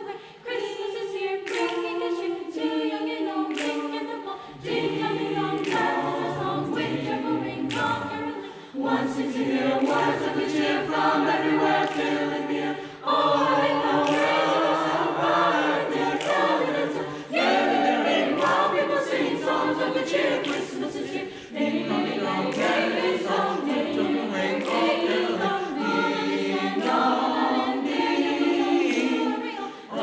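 School choir of boys and girls singing a Christmas song together in several parts, in phrases with brief pauses between them.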